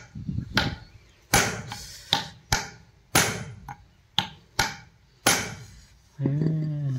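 A hammer striking a combine cutter motor's steel pinion gear and shaft, braced on an axe head: about nine sharp metal blows, unevenly spaced. Near the end a short, low, drawn-out vocal call follows the blows.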